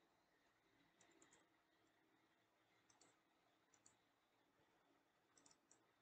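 Faint computer mouse clicks, a few small clusters of quick clicks, over near silence.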